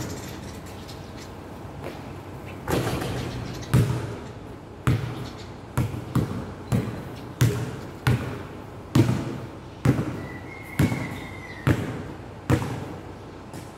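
A basketball being dribbled on a hard court under a metal roof, each bounce a sharp thud with a short echo. The bounces start about two and a half seconds in at roughly one a second, quicken in the middle, then slow again.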